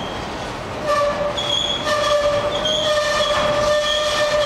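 Freight train tank cars rolling past with their wheels squealing. A steady high-pitched squeal sets in and grows louder about a second in, with a higher squeal coming and going over it, above the rolling rumble of the cars.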